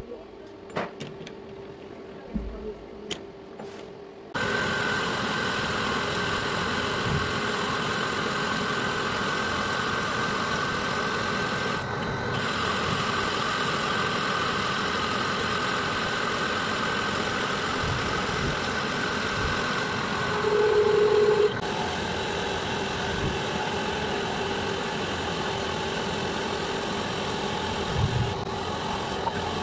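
A few light metallic clicks as parts are handled, then from about four seconds in a metal lathe running steadily with a steady whine over its motor and gear noise. About two-thirds through, a louder tone rises above it for about a second.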